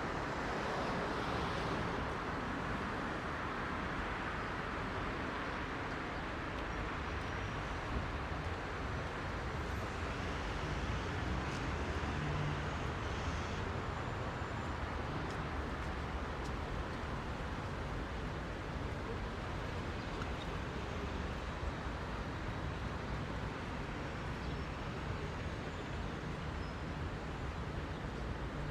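Heavy road traffic: a steady, unbroken wash of car engines and tyres, with a few faint ticks over it.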